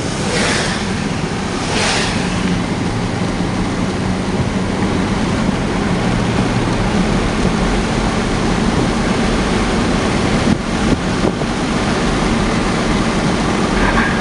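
Steady rushing noise over a low engine hum, with two brief swells of hiss in the first couple of seconds: a vehicle running, with road and wind noise.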